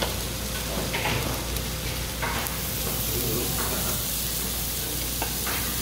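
Pork belly slices and garlic sizzling on a hot grill plate in a steady hiss, with a few short clicks and scrapes of metal tongs on the plate as food is moved around.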